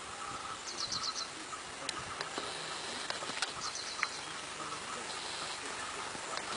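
Quiet jungle ambience with a few short trains of rapid, high-pitched chirping and a couple of faint clicks.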